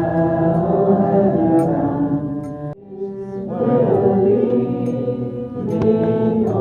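Music of long held, chanting-like tones, with a sudden cut about three seconds in before it picks up again.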